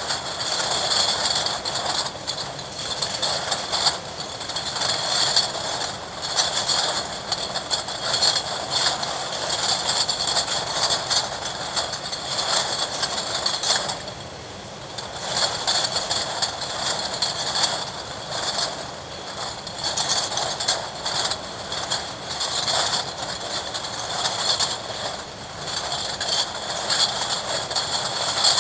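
Milk bottling plant line running: milk bottles clinking and clattering together on the conveyor amid machinery, a dense continuous rattle of small knocks. It eases off briefly about halfway through.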